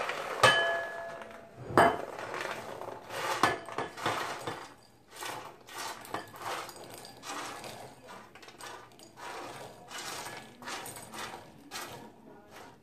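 Pre-roasted chickpeas rattling and sliding across a tipped metal baking sheet and being swept by hand into a bowl. About half a second in, the sheet clanks and rings briefly, with two more knocks in the next three seconds, then a run of small rapid clicks as the chickpeas roll and drop.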